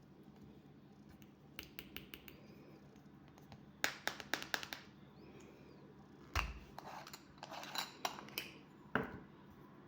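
Hands handling cosmetic packaging: groups of sharp fingernail taps, clicks and light scratches on a box or jar, with one dull thump a little past the middle.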